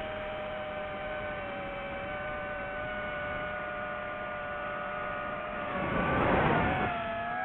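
DJI FPV quadcopter's motors and propellers whining at a steady pitch, with a louder rush of air about six seconds in as the pitch dips and then climbs again with the throttle change.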